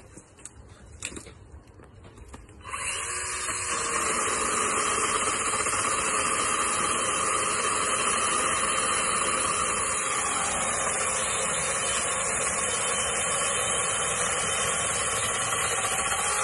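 Powerworks 60V battery pole saw's brushed electric motor starts suddenly about three seconds in and runs steadily at full speed, its chain cutting into a small tree trunk.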